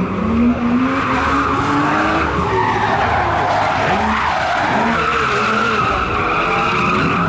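BMW E30 drift car sliding through a drift, its engine revving high over the continuous squeal of spinning rear tyres. The engine note climbs at the start and dips and recovers about four seconds in.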